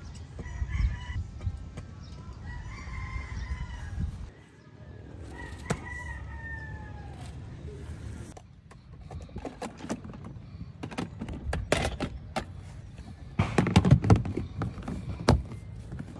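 A rooster crows twice, each crow about one to two seconds long, the second falling in pitch at its end. In the second half comes a run of clicks, knocks and clatter from camping gear being handled and packed, loudest shortly before the end.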